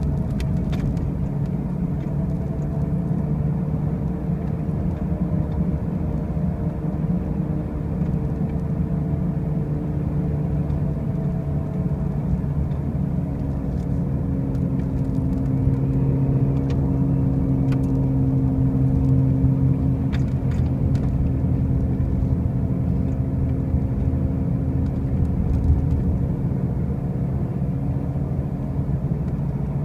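2005 Pontiac Grand Prix driving with a loud, steady low drone, several tones above it slowly sinking and rising. This is the noise the owner cannot explain, since the wheel bearings and tires are new.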